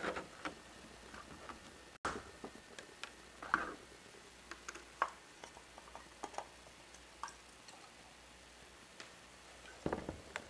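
Scattered light clicks and taps of thin plastic as a plastic gallon water jug and clear plastic cups are handled.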